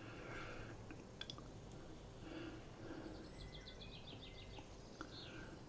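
Quiet room tone with faint bird chirping in the background, including a quick run of high chirps about three and a half seconds in.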